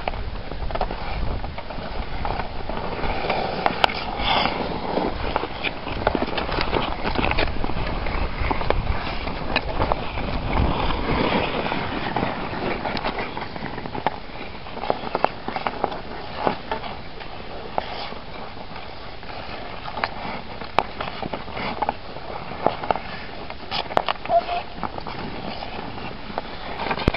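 Outdoor pickup hockey on snowy ice: skate blades scraping and sticks clacking against the puck and the ice, a steady scraping with frequent sharp clicks.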